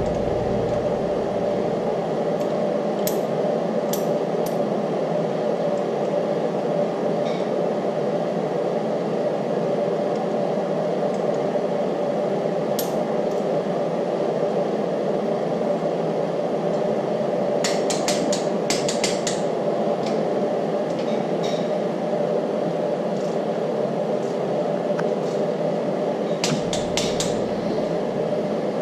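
Steady background hum with a faint tone in it, broken by sharp metallic clicks from a wrench on the camshaft thrust plate bolts. The clicks come singly a few times and in two quick runs, about two-thirds of the way through and near the end, as the bolts are torqued to 115 inch-pounds.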